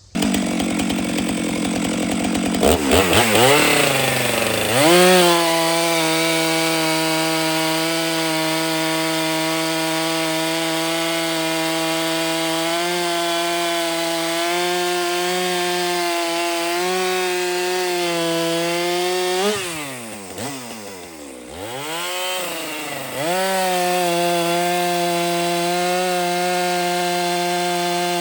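Stihl chainsaw running at a low speed, then revving up about three seconds in and holding at full throttle while cutting through firewood logs. About two-thirds of the way through it drops back to a low speed for a few seconds, then revs up again into another cut.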